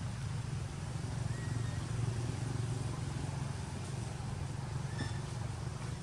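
Steady low engine rumble, with a short high squeak about five seconds in.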